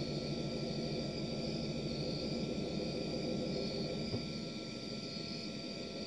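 A steady low rumble, with a faint steady high tone above it and a pulsing high chirring. There is a single faint click about four seconds in.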